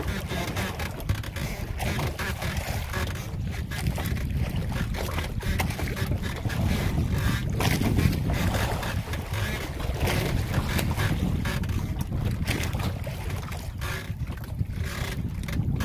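Steady low rumble of a motorized outrigger fishing boat under way, with wind gusting on the microphone.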